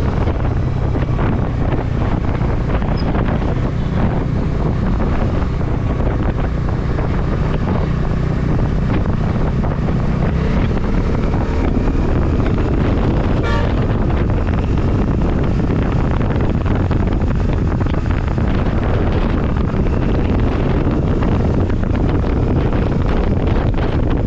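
Wind buffeting the microphone over the steady engine and road noise of a vehicle on the move.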